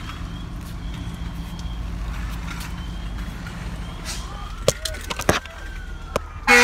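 Steady low vehicle rumble heard from inside the car, with an emergency siren wailing faintly, rising then falling in pitch, from about four seconds in. A few sharp clicks fall near the end, and a loud vehicle horn blast starts right at the close.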